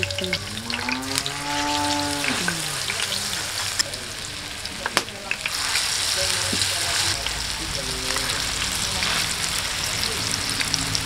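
Tofu fritters sizzling as they deep-fry in hot oil in a wok, with a metal spoon clicking against the pan now and then. The sizzle grows louder about halfway through as more batter goes into the oil.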